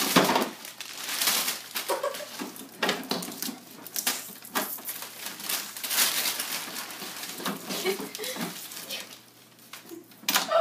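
A fabric cover rustling as it is pulled off a plastic toy bus, loudest near the start, then scattered plastic clatter and rubbing as the toy is handled.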